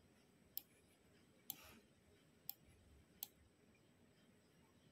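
Computer mouse clicking: four sharp single clicks about a second apart in near silence, the second followed by a brief faint rustle.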